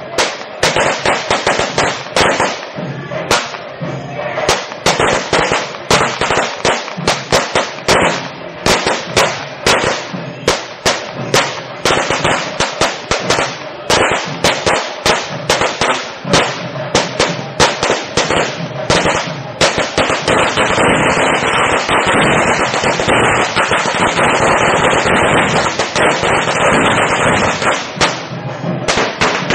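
Festival firecrackers going off in a rapid, irregular run of sharp loud bangs, a couple or more a second. About twenty seconds in they merge into a dense continuous crackle.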